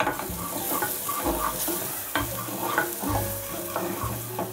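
Wooden spoon stirring and scraping onions and spices frying in oil in a saucepan, with repeated scraping strokes against the pan over a steady sizzle.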